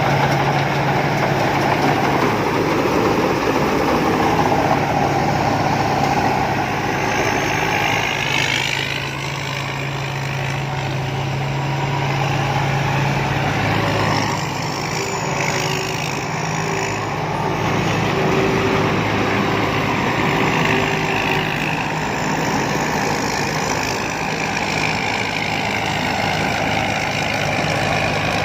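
Engine of a rice combine harvester running steadily, a continuous low hum.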